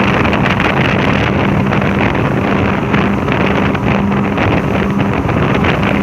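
Twin Yamaha outboard motors running steadily at speed, full throttle, with heavy wind noise on the microphone.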